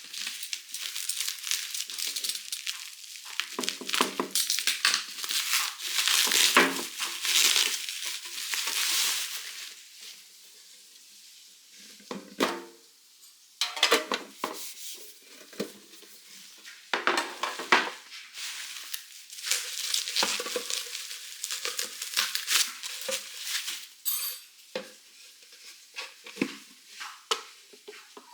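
Packaging crinkling and rustling as stationery items are unwrapped and handled, in irregular bursts with a quieter stretch about ten seconds in.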